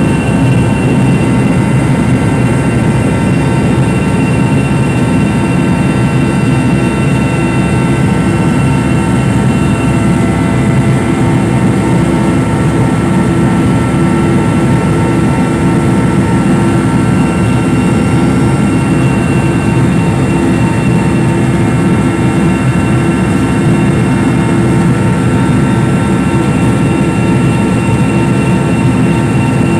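Helicopter engines and rotor heard from inside the cabin during takeoff and climb: a loud, unbroken drone with a steady high whine on top.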